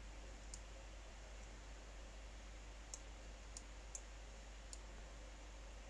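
Faint computer mouse clicks, about five, spaced unevenly over a low, steady room hum.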